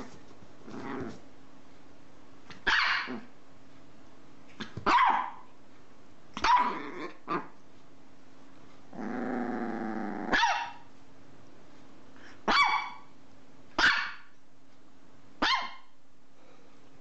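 Chihuahua giving about seven short, sharp, high barks a second or two apart while playing in a blanket. About nine seconds in, a low growl of about a second and a half runs straight into a bark.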